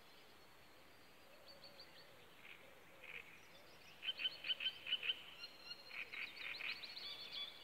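Great reed warbler singing in a reedbed: a run of loud, rapid repeated notes, about five a second, begins about halfway through, and a second run follows near the end, with fainter notes before.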